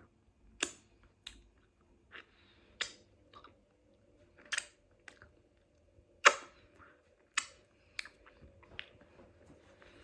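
Close-miked chewing of a flaky pastry bake: irregular wet mouth clicks and smacks, about a dozen over the stretch, the loudest about six seconds in.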